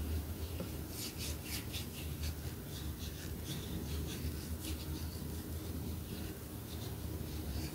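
Fingers rubbing turmeric paste over the bare skin of an arm, making a run of short, scratchy strokes, several a second, that come and go. A steady low hum runs underneath.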